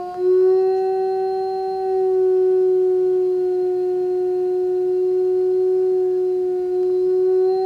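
Adult male eastern timber wolf howling: one long howl held at an almost even pitch for about seven seconds, begun after a brief breath at the very start.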